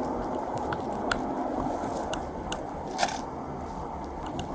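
Steady low rumble of a moving car heard from inside, with scattered small clicks and ticks.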